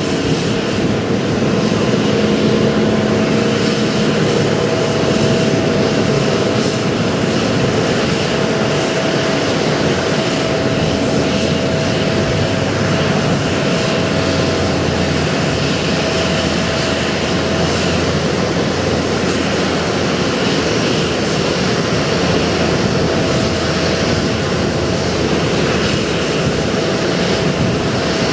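Jet airliner engine noise across an airport apron: a steady rush with a steady whine running over it.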